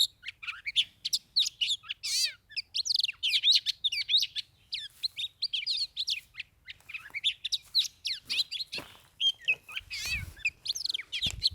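Oriental magpie-robins singing in a fast, unbroken run of varied whistles, warbles and chirps: territorial song from birds squaring off to fight at a trap.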